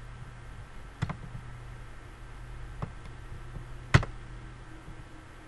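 Three short, sharp clicks of a computer mouse, the loudest about four seconds in, over a faint steady low hum.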